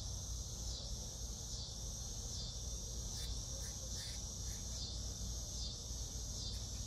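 Steady chorus of outdoor insects chirping high and shrill, pulsing in a regular beat a little more than once a second, over a low background hum. A few faint short clicks come through about halfway.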